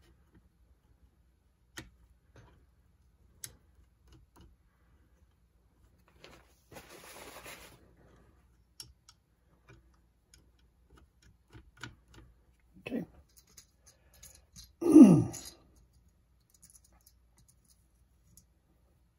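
Scattered light clicks and ticks of small parts and tools being handled on a reel-to-reel tape recorder's mechanism, with a short hissing rustle about seven seconds in. Two brief downward-sliding tones follow, a faint one about thirteen seconds in and a louder one about fifteen seconds in, which is the loudest sound.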